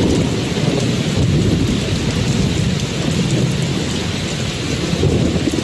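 Steady rain with a low rolling rumble of thunder underneath, from a rain-and-thunder ambience track.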